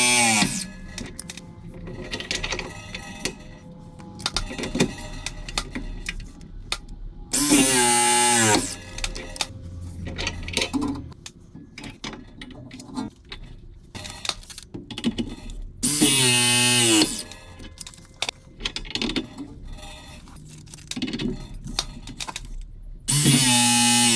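Ridgid RP 241 battery press tool crimping copper press fittings, four presses about eight seconds apart. Each runs for about a second, its motor note dropping in pitch as the jaws close, and the first is already under way at the start. Quieter background music and handling sounds fill the gaps.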